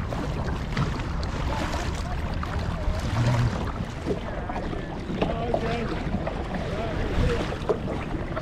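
Water sloshing and splashing around a kayak being paddled, with wind buffeting the microphone.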